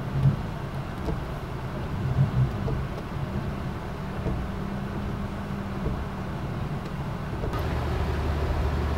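Car engine running steadily with a low hum; a few brief knocks come near the start and about two seconds in, and a deeper engine tone joins about seven and a half seconds in.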